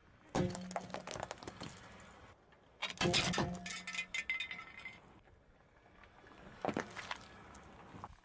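Objects crunching, crackling and clinking as a car's tyres crush them: two long bursts of crunching, then a short one near the end.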